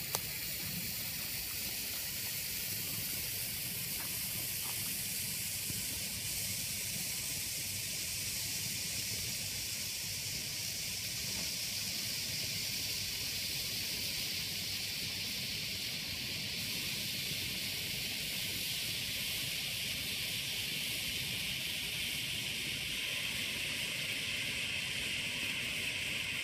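Blackboxx purple magnesium flare, a 24 mm hand-held torch, burning with a steady hiss.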